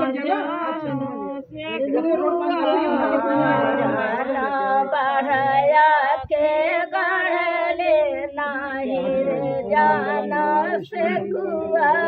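Women singing an unaccompanied rustic (dehati) folk wedding song, the kind sung at the bamboo-planting (bans gadna) rite.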